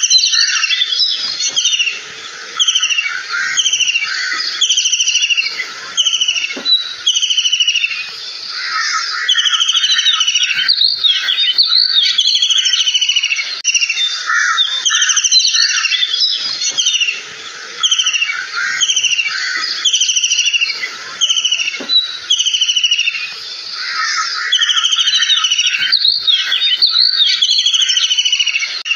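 Kingfisher calls: quick runs of short, harsh, repeated notes, each dropping slightly in pitch. The runs overlap almost without pause, with a few brief dips.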